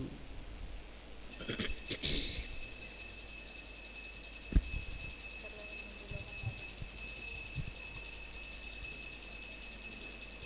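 Altar bell ringing continuously in a steady, high, shimmering tone, starting about a second in, as the chalice is elevated at the consecration.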